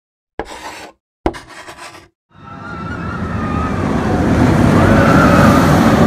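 Intro sound effects: two sharp hits about a second apart, then a rushing rumble that swells for several seconds with a wavering whine over it, as an animated roller coaster car enters.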